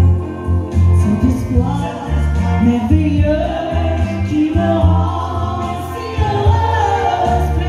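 A woman singing live into a handheld microphone over amplified backing music with a strong bass line.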